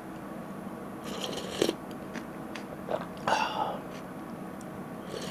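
Close-miked eating sounds: a few sharp clinks of a spoon and glassware, and a short slurp of udon broth from a spoon a little past the middle.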